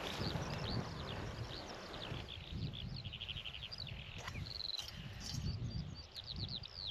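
Small songbirds singing: many quick high chirps and fast trilled runs of notes, over a steady low rumble.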